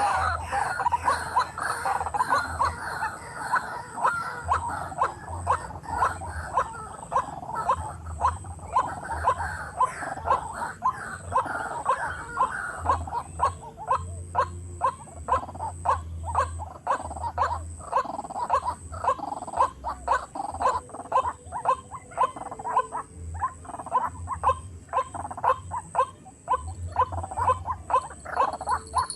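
White-breasted waterhen (ruak-ruak) calls: short croaking notes repeated steadily, about two to three a second.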